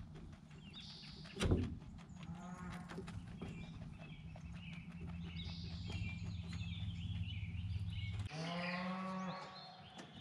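Cow mooing: one long, steady, low call about eight seconds in, with small birds chirping throughout. A single knock sounds about a second and a half in.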